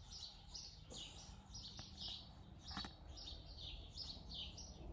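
Small birds chirping faintly, a quick run of short high chirps about three a second, with a couple of soft knocks.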